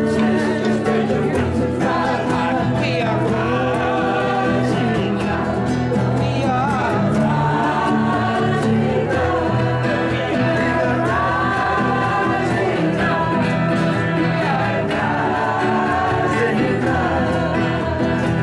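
Several voices singing a song together into microphones, over acoustic guitar accompaniment.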